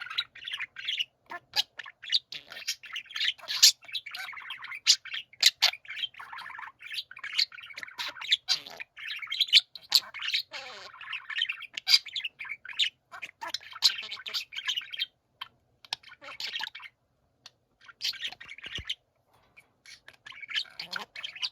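Several budgerigars chattering and warbling together in a dense chorus of chirps, rasping squawks and clicks, with a pause of about three seconds shortly before the end, when the chatter starts again.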